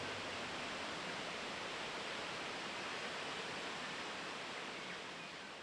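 Steady rush of a waterfall, Dog Stream Falls, fading out near the end.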